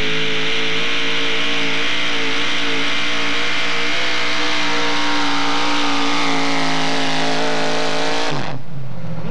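Modified four-wheel-drive pulling truck's engine running loud at high revs as the truck drags the pulling sled, its note wavering slightly. About eight seconds in, the throttle is cut and the engine note falls away to a lower idle.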